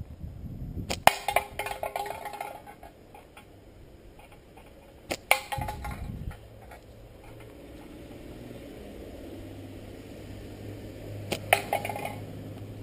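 Three slingshot shots with marbles at a can: each a sharp crack followed by a brief ringing clatter, about a second in, about five seconds in and near the end.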